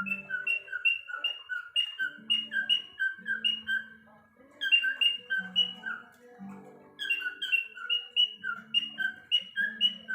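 Cockatiel chirping in quick, regular phrases of short high whistled notes, about three a second, over background music with low held tones.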